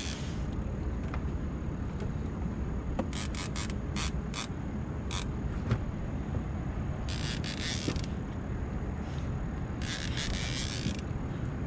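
Fishing reel clicking and rasping in short bursts as a big flathead catfish is fought on a heavily bent rod, over a steady low rumble.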